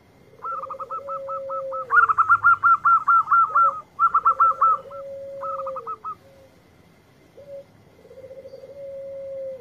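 Caged zebra dove (perkutut) cooing three times. Each phrase is a short note, then a quick rattling run, then a long held note that drops at the end. Over the first six seconds a higher, louder run of quick chirping notes, about eight a second, sounds on top of it, pausing briefly twice.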